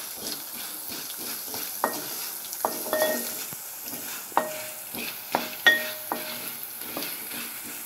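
Whole spices (coriander seeds, urad dal, cumin, fenugreek and mustard seeds) sizzling in a little oil in a metal pan over a very low flame, stirred with a spatula that scrapes along the pan. The spatula knocks against the pan about seven times, each knock leaving a short metallic ring.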